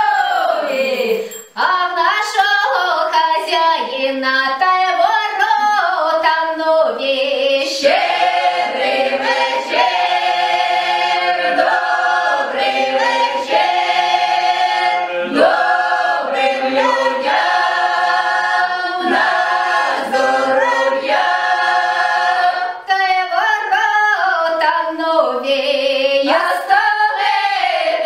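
Ukrainian folk vocal ensemble singing a Christmas carol in close harmony, women's voices to the fore, with a brief break between phrases about a second and a half in.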